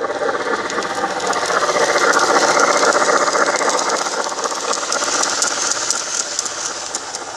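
Garden-scale model train cars rolling past close by, their wheels rattling and clicking on the rails, loudest about two seconds in and easing off after.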